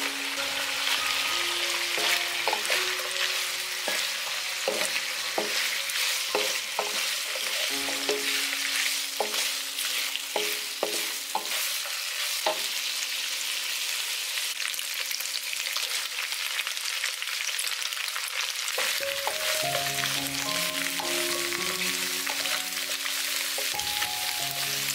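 Cured pork and spiced firm tofu sizzling in hot oil in a wok, stirred and tossed with a wooden spatula that knocks against the pan many times in the first half.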